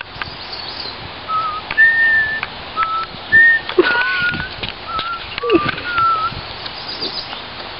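A person whistling a short tune of separate held notes at changing pitches, each about half a second long, with a few faint clicks in between.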